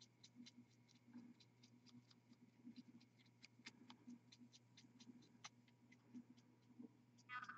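Faint, irregular ticks and light scratches of a paintbrush working over a small miniature figure, over a low steady hum.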